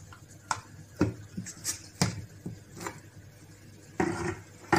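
Knocks and clicks of a stainless steel mixer-grinder jar being handled and fitted onto its base, a few separate taps about a second apart, then a longer rattle near the end. The motor is not running.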